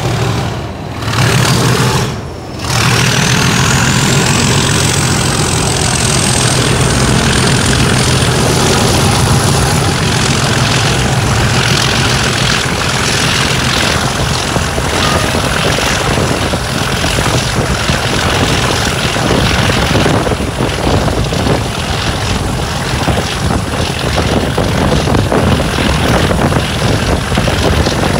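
DRS Class 37 diesel locomotive's English Electric V12 engine working hard at full power as the train pulls away and gathers speed. After a couple of brief dips in the first few seconds, the engine sound holds steady and loud, while a high turbocharger whistle rises over several seconds and then holds.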